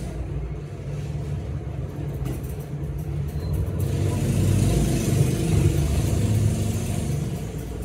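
A steady low rumble that grows louder about four seconds in, with a few faint clicks between two and three seconds in.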